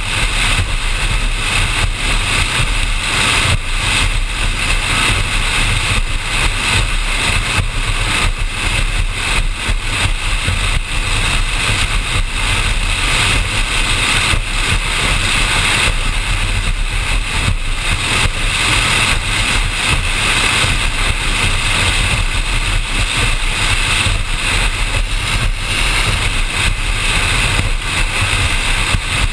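Offshore powerboat running steadily at speed: a continuous engine drone mixed with rushing water and wind buffeting the bow-mounted microphone.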